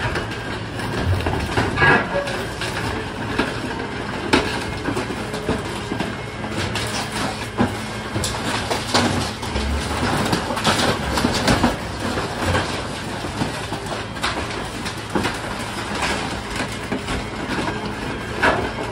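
Truck-mounted CrushR dumpster compactor at work: its engine and hydraulics run steadily while the spiked roller drum crushes wood and cardboard debris in a roll-off dumpster, with frequent cracks, snaps and knocks of breaking scrap.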